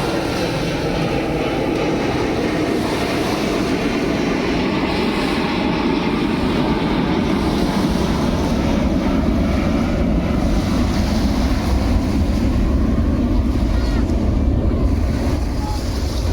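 Wind buffeting the microphone over rushing sea water: a steady, loud noise with a deep rumble that grows stronger about halfway through.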